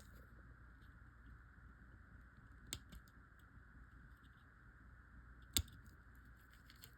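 Near silence with two small, sharp clicks about three seconds apart, the second the louder: jewelry pliers working the cut end of 20-gauge wire to tuck it in.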